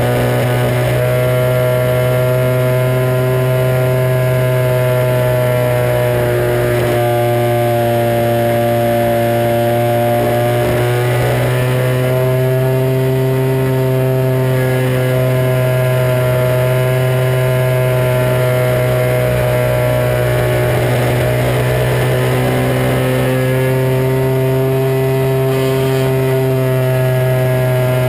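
Radio-controlled Extra 260 model plane's motor and propeller, heard from a camera mounted on the plane, running steadily at high power. Its pitch rises and falls slightly a few times as the throttle changes in flight.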